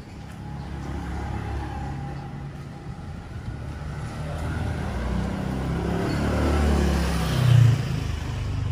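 A motor vehicle passing close by, its engine and road noise building gradually to a peak about seven and a half seconds in, then easing off.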